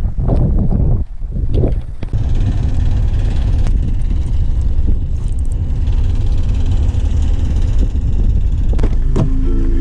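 Wind buffeting the microphone, a loud, steady low rumble. Music comes in near the end.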